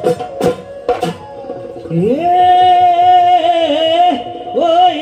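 Assamese Bihu folk music: dhol drum strokes in the first second, then a long held, strong melodic note that wavers and bends in pitch, breaking briefly near the end and starting again.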